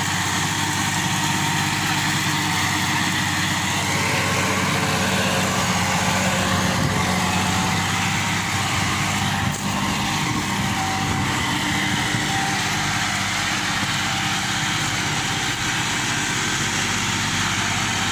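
Farm tractor's diesel engine running steadily under load while pulling a rotary tiller that churns soil and plant debris.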